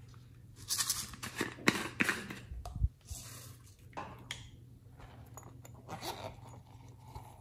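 Hands squeezing and handling small squishy toys: a burst of crackling and rustling with sharp clicks about a second in, lasting about two seconds. Lighter, fainter handling noises follow.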